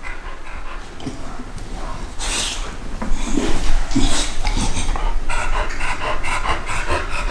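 Heavily pregnant American Bully dog panting hard, with scratching and rustling as she digs at the fleece bedding of her whelping box; the panting turns fast and even over the last couple of seconds. Heavy panting and nest-digging are the signs that, to her owners, mean labour has begun.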